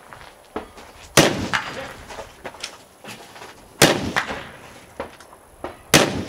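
Three rifle shots fired from the prone position, about two and a half seconds apart, each trailed by a short echo, with fainter sharp cracks in between.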